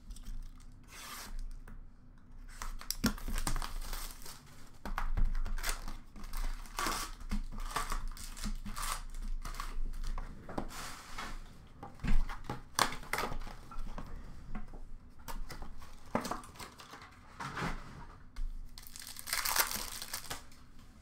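Upper Deck Series 1 hockey card packs being torn open by hand, the wrappers ripping and crinkling in a run of irregular rasps, with a longer crinkle near the end.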